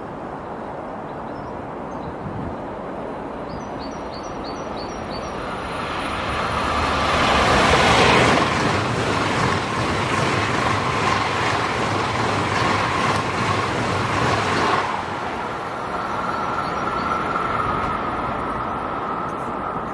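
Eurostar high-speed train passing at speed: a rush of wheel and air noise that builds for a couple of seconds, is loudest about eight seconds in, and drops away suddenly about fifteen seconds in as the train clears, leaving a faint steady whine.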